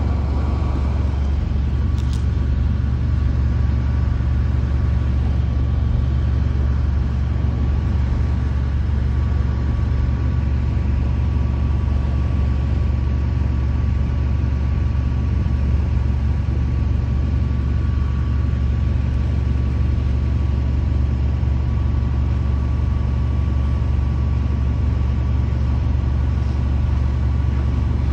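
Heavy truck engine running steadily, a deep constant drone with a faint steady whine above it.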